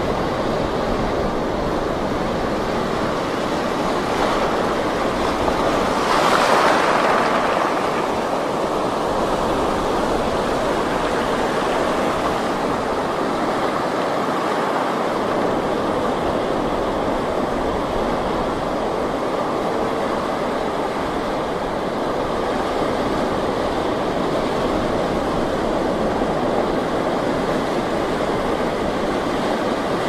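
Ocean surf: a steady wash of breaking waves, with one louder wave crashing about six seconds in.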